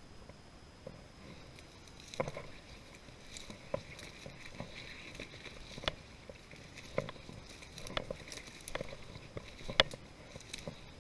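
Footsteps crunching through dry grass and brush, with stems rustling against legs. There are irregular steps about a second apart, starting about two seconds in, and the sharpest snap comes near the end.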